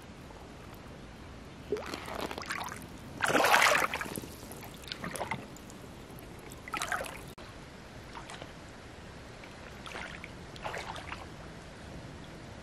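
Shallow stream water splashing and sloshing around wading boots and hands, in several short bursts, the longest and loudest about three seconds in.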